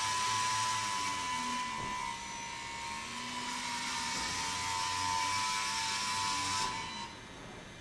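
The robotic blimp's small propeller motors whining steadily as it is steered, cutting off sharply about a second before the end.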